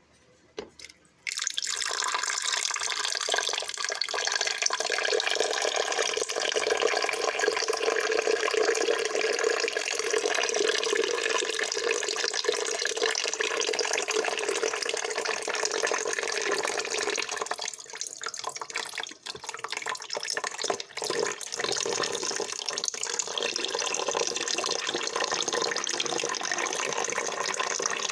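Water pouring from a glass carafe into the reservoir of a drip coffee maker: a steady splashing stream that starts about a second in, thins briefly past the middle, then runs on.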